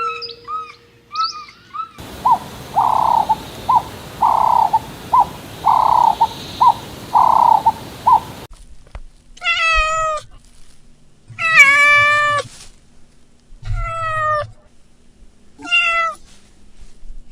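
A cat meowing four times, each meow a separate call gliding down in pitch, in the second half. Before it come a few high chirps and then a rhythmic run of short calls over a steady hiss, from other animals.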